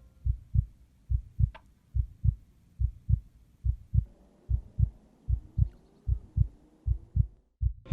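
Heartbeat: low double thumps, lub-dub, a little more than one pair a second, steady in pace and stopping just before the end.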